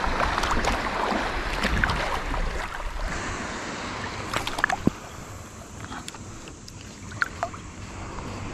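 Steady wind and water noise that eases off after about four to five seconds, with scattered small clicks and ticks.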